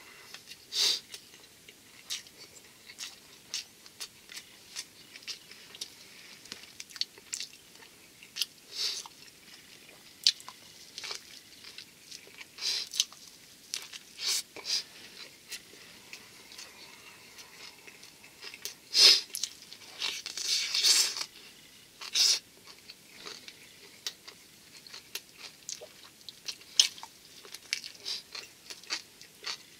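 A person biting and chewing a thick ehomaki sushi roll wrapped in nori while speed-eating, giving close, wet mouth clicks and crunches at irregular intervals. A louder stretch of these noises comes about two-thirds of the way in.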